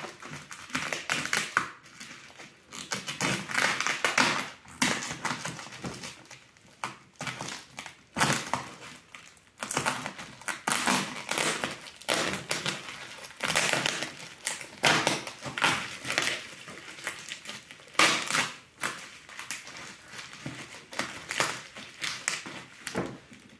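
Bubble wrap around a parcel being cut with a small blade and pulled open: irregular crinkling and crackling of plastic, in bursts of handling with a few sharper, louder crackles.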